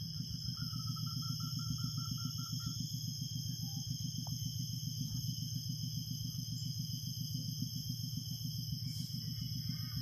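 Yamaha Vega ZR's 110 cc single-cylinder four-stroke engine idling steadily on its stock exhaust, a low, even pulsing. Insects shrill steadily on a few high tones, and a rapid trill of chirps runs for about two seconds near the start.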